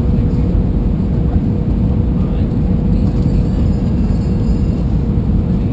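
Steady cabin noise inside an Airbus A320-200 on final approach: a loud, even low rumble of engines and airflow with a faint steady hum above it.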